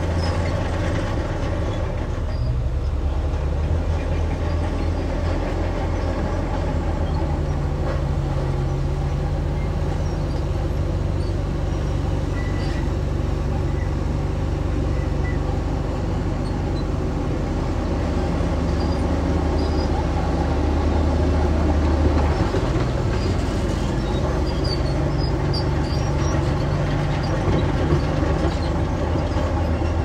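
Crawler bulldozer's diesel engine running steadily while working, its pitch shifting a few times.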